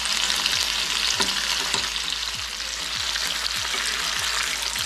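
Quail pieces sizzling steadily in hot oil in a nonstick frying pan, with small crackles and the scrape of a spoon and slotted spatula turning the pieces.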